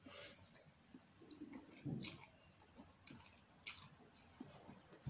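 Faint chewing of a mouthful of pancit noodles, with soft mouth sounds and a few brief clicks.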